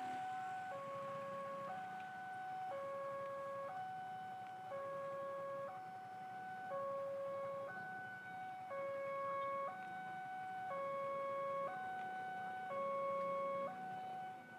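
Railway level-crossing warning alarm sounding an electronic two-tone signal: a lower and a higher tone take turns, each held for about a second, over and over. The barrier is down and a train is approaching.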